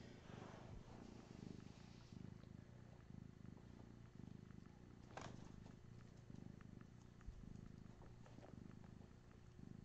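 Faint cat purring, a low rumble that comes and goes in even breaths. There is one brief sharp sound about five seconds in.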